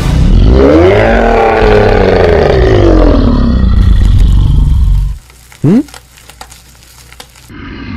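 Animated Nine-Tailed Fox's roar: one long, loud roar over a deep rumble, rising and then falling in pitch, that stops about five seconds in. A short sound sweeping quickly upward in pitch follows soon after.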